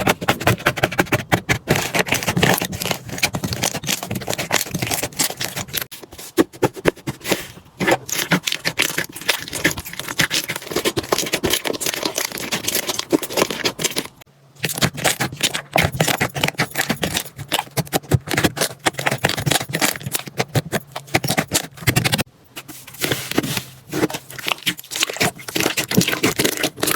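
Slime being squeezed and worked by hand, making dense, rapid crackling and clicking sounds that break off briefly twice, once about halfway through and again later on.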